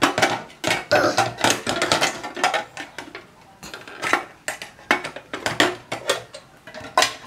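Fingers tapping and knocking on a thin printed metal tin box and shifting it on a glass tabletop: a quick, uneven run of sharp tinny clicks and clanks.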